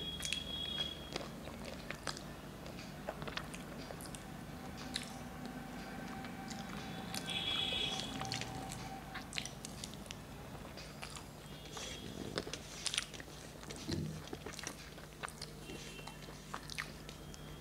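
A person chewing food and eating rice by hand from a steel plate: close mouth sounds with many small scattered clicks. A brief high-pitched tone sounds about eight seconds in.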